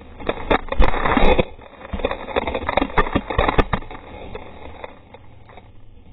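A 2015 Ski-Doo Summit 600 snowmobile and its rider crashing and tumbling through deep powder snow: a quick run of thumps and knocks with the scrape and hiss of snow, dying away after about four seconds.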